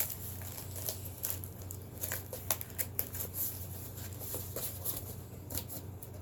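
Product packaging being handled and pushed back into its box: irregular crinkling and rustling with scattered sharp clicks and taps, over a low steady hum.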